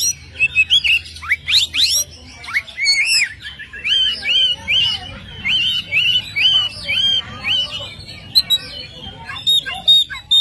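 Male oriental magpie-robin singing a varied song: quick rising whistles, then a run of repeated arched notes about two or three a second, and near the end a series of short, higher notes.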